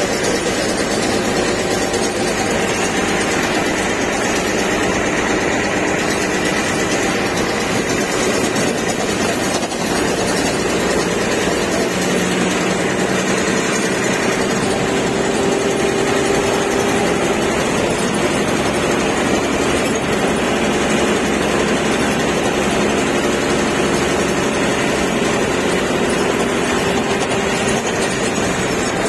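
Bus engine running while the bus is driven along a road, heard from inside the cab, with steady engine and road noise. The engine note rises and falls a little as the speed changes.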